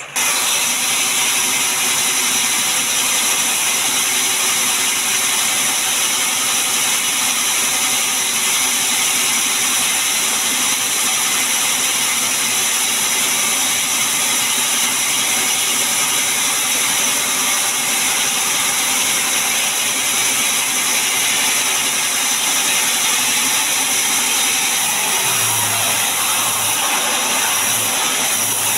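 Sawmill band saw running steadily without cutting while a mahogany log is set on its carriage, a dense steady machine drone with a high hiss. A few low thuds come near the end.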